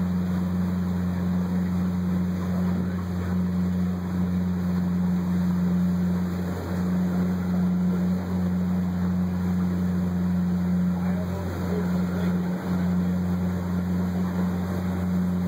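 A boat's engine running at a steady low drone as it moves through the water, with a constant hum and a rushing wash of water and air noise over it.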